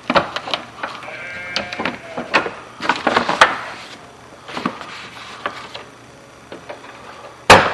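Truck door lock and latch mechanism being worked by hand: an uneven series of clicks and clacks, with a short squeak about a second in and a loud sharp clack near the end. The mechanism is the balky power-lock latch that has been greased repeatedly and still works poorly.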